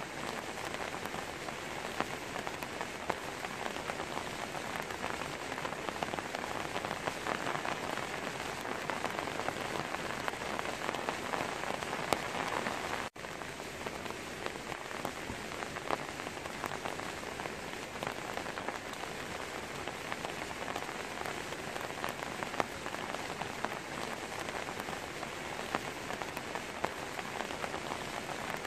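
Steady rain falling on a tree's leaves, a dense patter of drops with a split-second break about halfway through.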